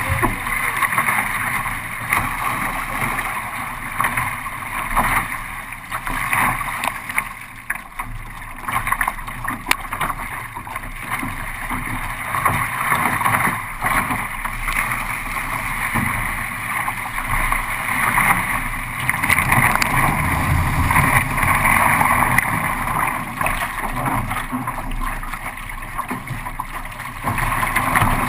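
Water rushing and splashing around a paddled kayak on open ocean swell, a continuous uneven wash that swells and eases.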